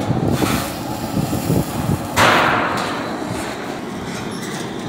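Dull thuds of copper pipe being bent with a hand bending tool and pressed against a stainless-steel tank, then a sudden louder rushing clatter about two seconds in that fades over about a second.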